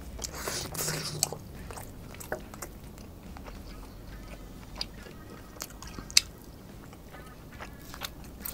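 Close-miked chewing of grilled wagyu picanha steak: wet mouth sounds and small clicks, densest in the first second as a piece goes into the mouth, with one sharp click about six seconds in.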